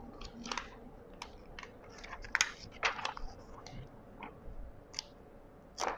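Double-sided tape being peeled off a plastic helmet visor, with the film handled: irregular small crackles and clicks, a few of them sharper.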